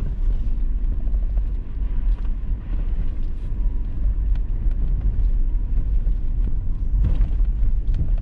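Toyota 4Runner driving along a gravel road: a steady low rumble of engine and tyres, with scattered faint ticks.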